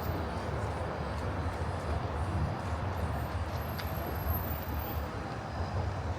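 Steady low rumble of urban street ambience, a continuous vehicle-like drone with no distinct events.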